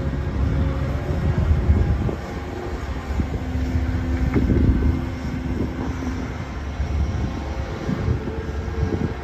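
Link-Belt 490 X4 crawler excavator's diesel engine running under load as the machine swings a bucket of dirt over and dumps it into a side-dump trailer, a steady low drone with a held tone in the middle and occasional knocks.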